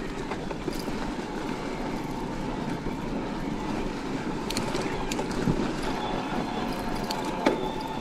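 Riding noise of an electric mountain bike on a trail of dry leaves: tyres rolling and crunching over leaves and dirt, with a faint steady whine from its Bosch Performance CX drive motor. A few sharp clicks and rattles come around the middle, and a louder knock comes near the end.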